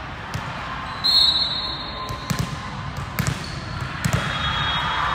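Volleyball referee's whistle blown once for about a second, signalling the serve, followed by three sharp slaps of hands on a volleyball: the serve and the rally's contacts. The sounds echo in a large gym.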